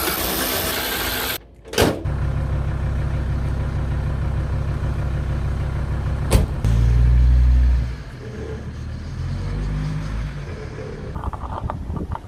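VW T4 2.5 TDI van's five-cylinder diesel engine running, heard as a steady low rumble in a few short cuts. It drops out briefly about a second and a half in, grows louder for about a second around the middle, and is quieter near the end.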